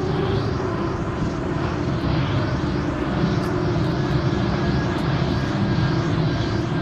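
Dense, steady rumbling noise drone from an experimental industrial collage track, sounding like an aircraft engine, with faint falling sweeps up high repeating about twice a second.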